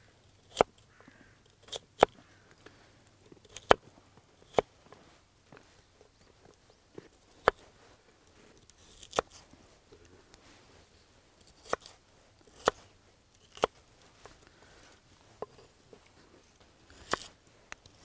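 Kitchen knife cutting lotus root into chunks on a wooden cutting board, the blade knocking sharply on the board about a dozen times at an uneven pace.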